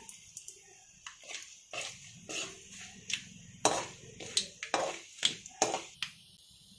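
Curry leaves crackling in hot oil with peanuts and chana dal, with irregular sharp pops and spits every half second or so, while a spoon stirs the pan.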